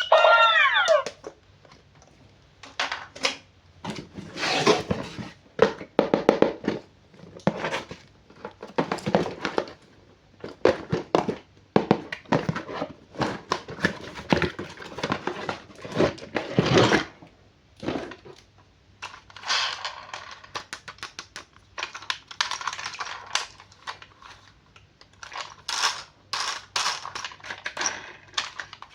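Hands unboxing and handling toys: irregular clicks, taps and short rustles of packaging and plastic, in quick clusters with brief pauses between them.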